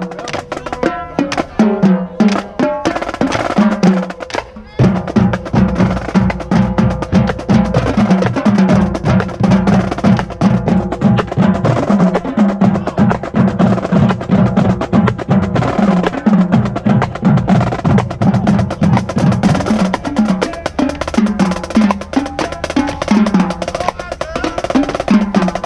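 Marching band drumline playing a marching cadence: a steady beat of drum hits with snare rolls and sharp clicks, which thins briefly about four seconds in and then comes back fuller.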